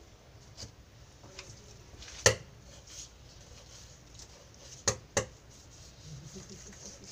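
Short clicks and knocks of a knife and kitchen scissors on a wooden table while a fish is cut up: the loudest about two seconds in, then two close together about five seconds in, with a few fainter ones between.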